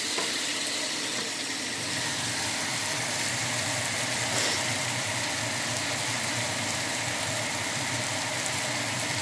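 Bitter melon stir-fry sizzling in a ceramic-coated nonstick pan over a gas flame, a steady even hiss.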